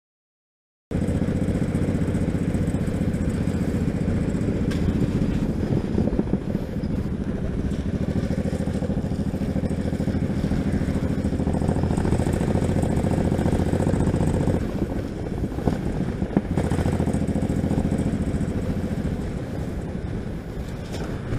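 Cruiser motorcycle engine running as the bike rides along, with some wind noise. It starts after about a second of silence, eases off about two-thirds of the way in, and gets quieter near the end.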